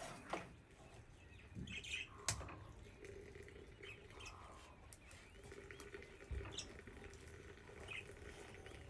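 Hot water trickling from a samovar's tap into a small teapot, with a click about two seconds in. Birds chirp here and there.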